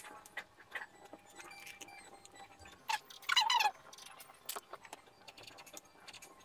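Plastic instant-noodle packets crinkling and clicking in the hands, in scattered short rustles. About three and a half seconds in comes a louder, short, high sound that falls in pitch.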